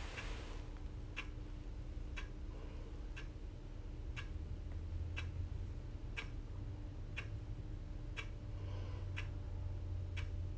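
A clock ticking steadily, about once a second, over a faint low hum.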